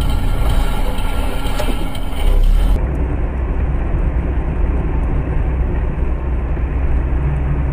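Steady low rumble of a car driving, engine and road noise heard from inside the cabin through a dashcam's microphone. About three seconds in it cuts to a duller, more muffled recording of the same kind of driving noise.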